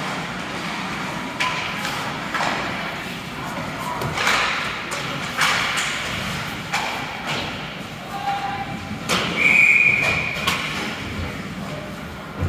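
Ice hockey play in an arena: scattered thuds and clacks of puck and sticks against the boards, with a steady high whistle blast of about a second, the referee's, near the end.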